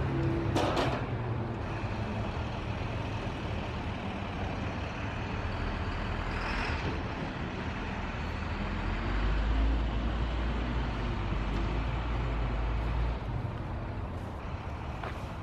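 A heavy vehicle's engine runs in a steady low rumble that grows louder from about nine seconds in and falls away about four seconds later. There is a brief hiss about six or seven seconds in.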